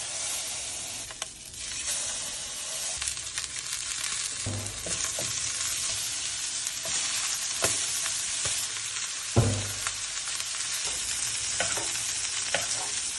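Steak searing in hot oil in a frying pan: a steady sizzle, with a few knocks of metal tongs and a spoon against the pan as the steak is basted with butter, thyme and lemon.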